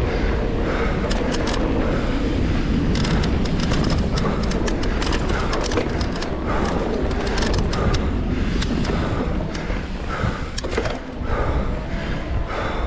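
Mountain bike ridden fast down a dirt trail: steady wind rush and rumble on the bike-mounted microphone, with tyre noise and frequent clicks and rattles from the bike over bumps.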